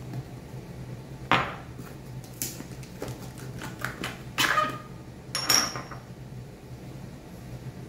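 Spice jars knocking and clinking as they are handled and set down: about five separate sharp knocks spread over several seconds, a couple of them ringing briefly.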